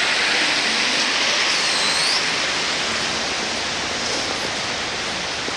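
Steady hiss of heavy rain, easing slightly toward the end.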